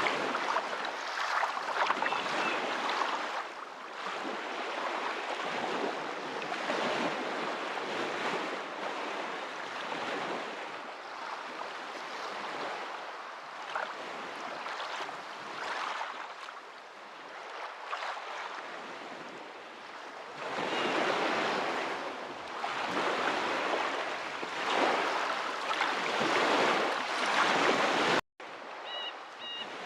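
Ocean waves washing in, rising and falling every few seconds. The sound cuts out for an instant near the end.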